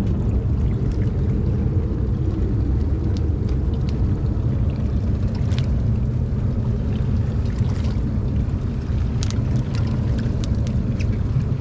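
A boat's outboard engine running at idle: a steady low rumble, with scattered faint clicks over it.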